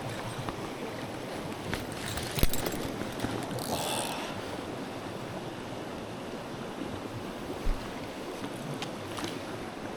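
Mountain stream water rushing steadily, with scattered clicks, a sharp knock about two and a half seconds in and a brief hiss around four seconds.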